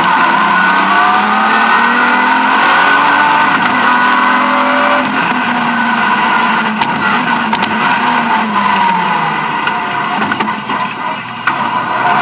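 BMW E36 M3 rally car's straight-six engine heard from inside the cabin, driven hard: the revs climb over the first five seconds, then fall away as the driver comes off the throttle, dip briefly near the end and pick up again. A few sharp clicks sound around the middle.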